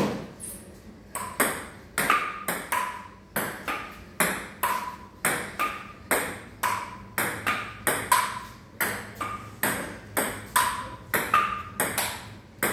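Table tennis rally: a celluloid ball clicking back and forth off paddles and a Sportcraft table, about two sharp clicks a second without a break, many with a short ringing ping.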